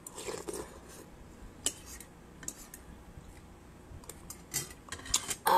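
Metal spoon and fork clinking and scraping now and then against a bowl of noodle soup while eating, in scattered light clicks. A louder cluster of clicks comes near the end.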